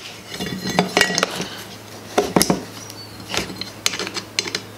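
Several separate clicks and clinks of metal and hard plastic parts knocking together as an angle grinder is put back together by hand, its gear-head housing being fitted onto the motor body.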